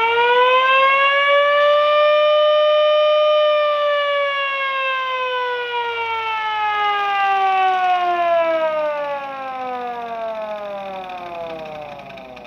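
3D-printed replica of a Federal Signal Model 2 mechanical siren, spun by a small 12-volt motor, giving a loud wail. It holds its top pitch for a few seconds, then winds down with a long, slowly falling, fading wail.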